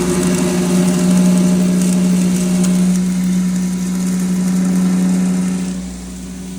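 7.5 hp poultry-feed grinder running loaded, a steady hum under the hiss and rattle of maize being ground; the sound gets quieter about six seconds in.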